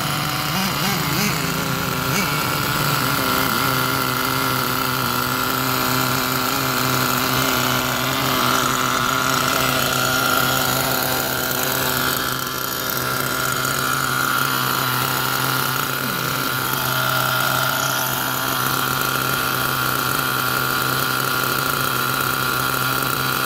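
Small glow-fuel (nitro) engine of a VRX-2 RC buggy idling steadily with the car standing still.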